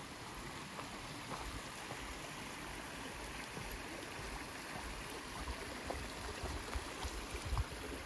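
Small rocky creek running steadily, with a hiker's footsteps on fallen leaves, the steps' low thumps getting heavier toward the end.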